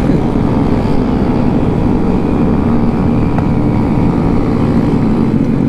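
Engines of mini motorcycles and scooters (Honda Groms, Ruckus scooters, Honda Monkeys) running with a steady, loud hum.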